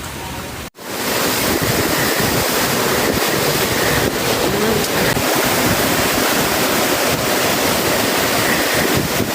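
Hurricane wind blowing hard with rain: a dense, loud rushing noise with gusts buffeting the microphone. It cuts out briefly just under a second in and comes back louder.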